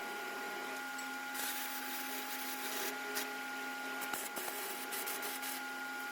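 Faint steady electrical hum with a constant whine and light hiss, like room tone, with a few faint small clicks.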